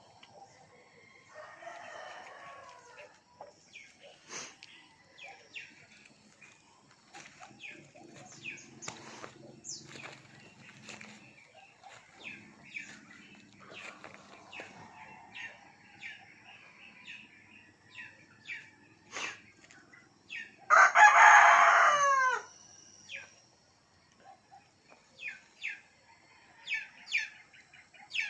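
A rooster crows once, loudly, about three-quarters of the way through, the call bending down in pitch at its end. Faint scattered short chirps and clicks come before and after it.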